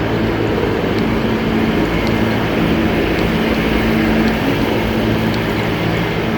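New York City subway train running, heard from inside the car: a steady, loud running noise with a low, even hum.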